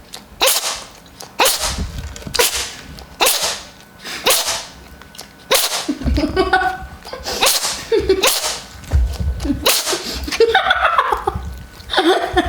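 A cat sneezing over and over in a fit, about ten sharp sneezes roughly a second apart. In the second half a voice sounds between the sneezes.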